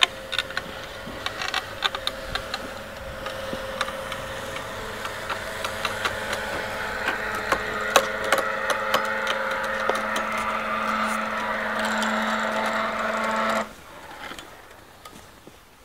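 Electric winch motor running steadily with a hum, winding in the cable as it drags a plough through the soil, with many sharp clicks over it. The hum grows slowly louder, then cuts off suddenly near the end as the motor is switched off.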